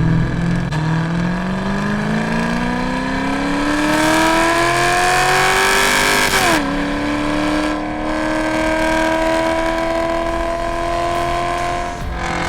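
Cammed 6.2-litre LS3 V8 of a Chevy SS with long-tube headers, accelerating hard. The engine note climbs steadily for about six seconds, drops suddenly at an upshift, then climbs again more slowly before dropping near the end.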